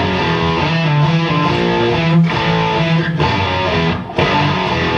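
Electric guitar played through a distortion pedal, a heavy riff with a couple of brief stops in it.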